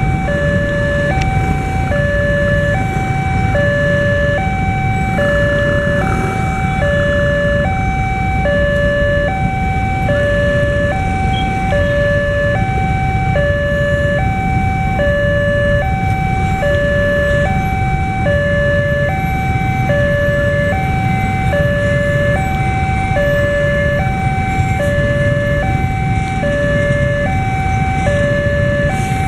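Railroad level-crossing electronic warning alarm sounding from its loudspeaker, a steady two-tone signal alternating between a low and a high tone, each held about half a second. It warns that a train is approaching while the barrier is down.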